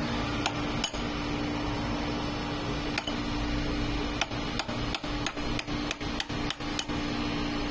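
Sharp metal-on-metal taps on the dough mixer's worm-gear housing: two early on, then after a pause about three taps a second for several seconds. A steady low hum runs underneath.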